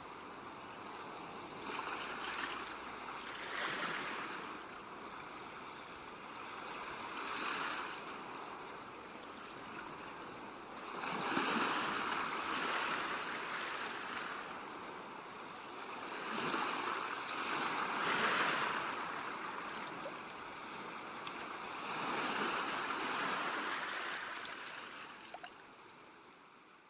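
Calm sea waves washing onto a shore, each surge swelling and drawing back every few seconds, fading out near the end.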